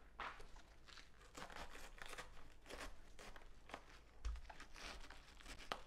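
Kitchen knife cutting into a raw head of green cabbage to carve out the core: faint, irregular crunching and crackling as the blade goes through the firm leaves, with a dull knock about four seconds in.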